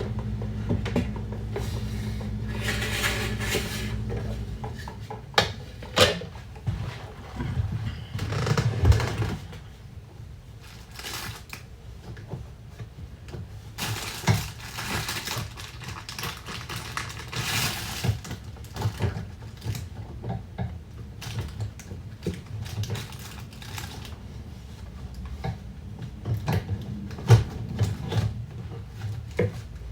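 Objects being handled in a kitchen: a run of light clicks and taps with several short rustling bursts, over a steady low hum that stops about four seconds in.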